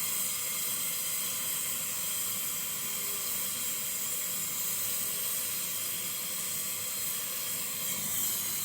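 Steady, high hiss of gas, heard during brazing and vacuuming work on a refrigerator's refrigerant line.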